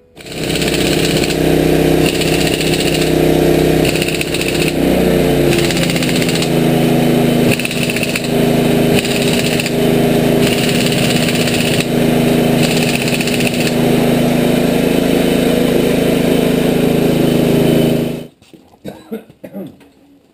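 Pneumatic air tools running: a steady mechanical drone with a high hissing whir that comes and goes in repeated bursts of about a second each, as an air impact wrench runs on the wheel's lug nuts. It cuts off suddenly near the end, leaving a few faint knocks.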